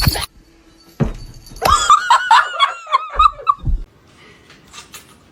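A person laughing in a quick, high-pitched giggle, a run of short repeated 'ha' syllables lasting about two seconds. A sharp knock comes at the very start.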